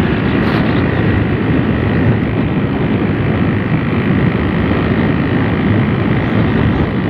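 A motor vehicle running steadily with road and wind noise, heard while travelling on it: a loud, even rumble with no breaks.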